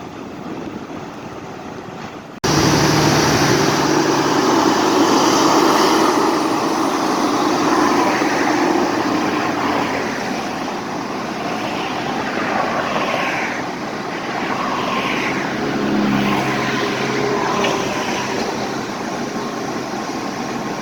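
Passing train: a diesel locomotive running with wheel and rail noise, loud and steady. It starts abruptly a couple of seconds in after a quieter stretch.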